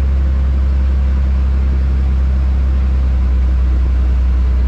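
Small fishing boat's engine running steadily at speed, a loud even low drone, with the rush of water from the wake over it.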